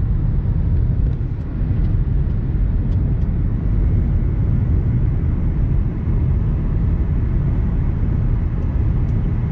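Steady low rumble of a car driving: road and engine noise.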